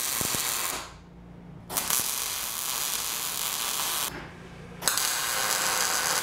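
Electric arc welding a steel bolt down onto a steel beam, the arc running in three stretches with short breaks about a second in and about four seconds in.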